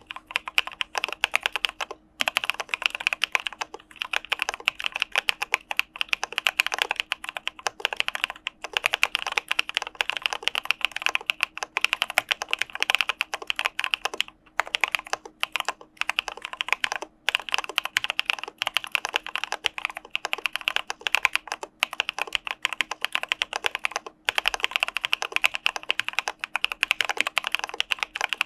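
Continuous fast typing on an Arisu Alice-layout mechanical keyboard fitted with CPSD (Cà Phê Sữa Đá) linear switches, a rapid stream of keystrokes broken by a few short pauses.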